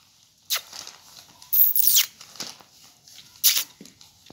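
Paper pages of a notebook rustling and scraping as a kitten rolls and paws on them: four short rustles, the longest and loudest about two seconds in.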